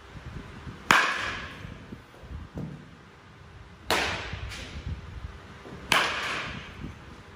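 Baseball bat hitting pitched balls: three sharp cracks, about a second in, about four seconds in and near six seconds, each ringing on in a large echoing hall, with a fainter knock after the second and third.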